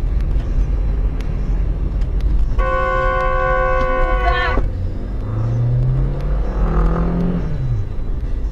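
Steady low road and engine rumble heard from inside a moving car, with a car horn held for about two seconds, starting roughly three seconds in; the horn's pitch sags just as it cuts off.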